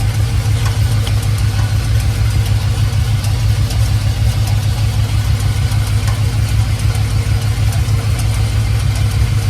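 Swapped GM 5.3 L LS V8 idling steadily, with light ticks coming through several times a second over the engine note. The owner takes the noise for a flywheel problem, possibly a small crack, or torque converter bolts.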